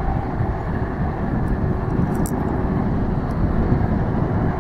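Jet engines of a twin-engine wide-body airliner running as it moves along the runway: a steady low rumble that grows slightly louder, with wind on the microphone.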